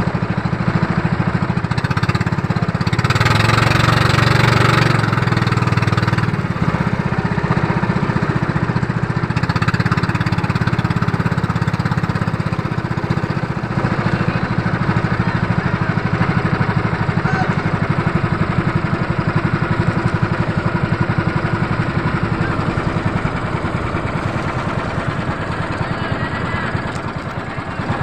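Outrigger boat's engine running steadily under way, briefly louder and noisier a few seconds in.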